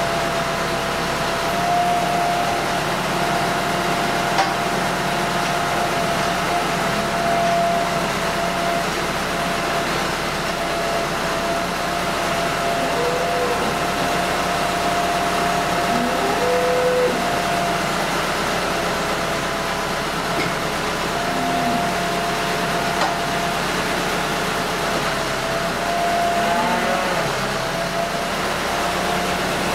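Tractor engine running steadily at constant speed while it powers a hydraulic bale cutter slicing a round silage bale, with a steady high tone over the engine hum.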